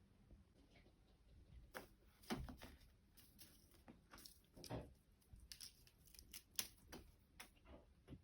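Faint, irregular tearing and scratching as a cat claws and rips at a homemade cat toy, in short strokes that start about two seconds in.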